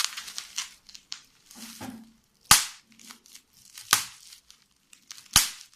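Bubble wrap being squeezed by hand, bubbles bursting with three sharp pops about a second and a half apart, with plastic crinkling in between.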